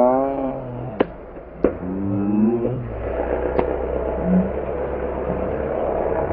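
Off-road race buggy's engine revving in two short rising surges as it bounces over the track, with three sharp cracks, then settling to a steady low drone as it drives away.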